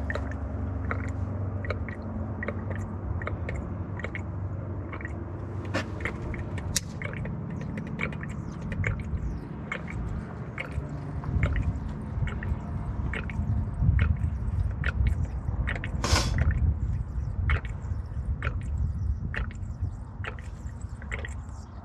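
Gasoline poured from an upturned plastic bottle into a two-barrel carburetor to prime it, gurgling and dripping in short irregular pops over a low steady rumble. One louder burst comes about sixteen seconds in.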